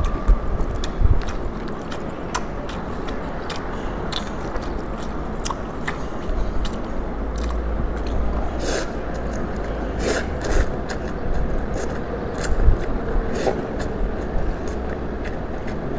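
Close-miked eating of beef noodles: chewing and slurping, with many small clicks and a few louder slurps about halfway through, over a steady low rumble.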